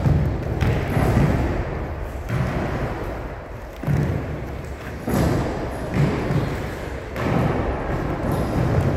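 Children's feet thudding on a wooden gym floor as they jump over low wooden benches, one landing after another at an uneven pace.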